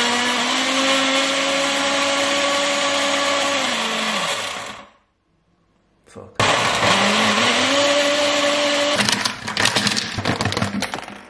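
A countertop blender's motor spins up with a rising whine, runs steadily on a load of ice cubes, then winds down. After a short break it spins up again, and about two seconds before the end it stops and gives way to irregular knocks and rattles. The blender is struggling with the ice: it cannot blend an ice cube at all.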